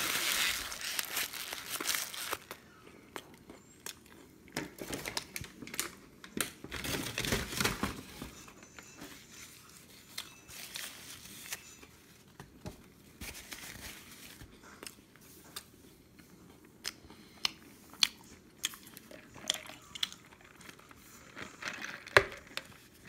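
Paper crinkling and rustling in bursts, loudest at the start, again about six seconds in and briefly near the end, with scattered small clicks in between.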